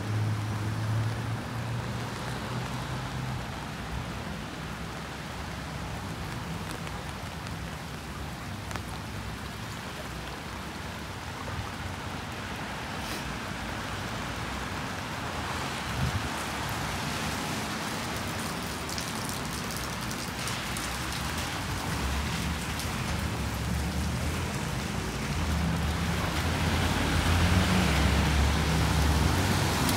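Steady rain falling on a city street, with a low rumble of traffic that grows louder near the end.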